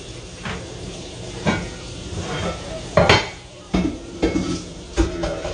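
Dishes and utensils clattering at a kitchen sink: a string of separate knocks and clinks, about six, with the loudest about three seconds in.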